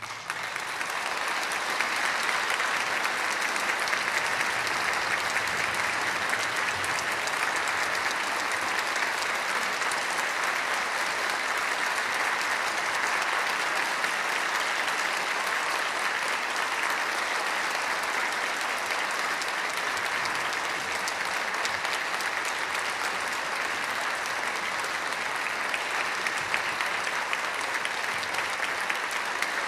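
Concert audience applauding after an orchestral performance. The clapping breaks out suddenly and holds at an even level.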